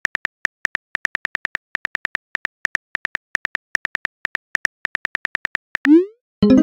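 Simulated phone-keyboard typing clicks in quick runs, several a second, as a text message is typed. Near the end comes a short rising swoosh as the message is sent, then a chime.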